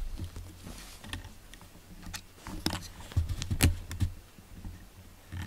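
Scattered small clicks and knocks, busiest about three to four seconds in, where a few dull thumps come with them.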